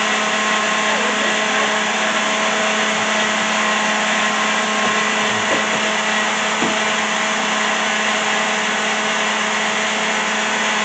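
Blender motor running steadily at one speed: a loud, even whir with a constant hum underneath.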